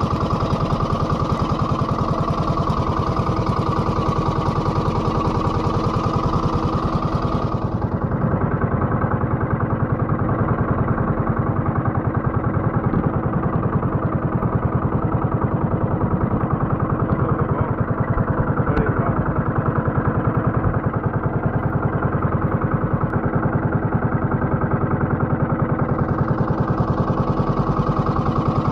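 Fishing boat's engine running steadily at an even speed. Above it a hiss drops away about eight seconds in and comes back near the end.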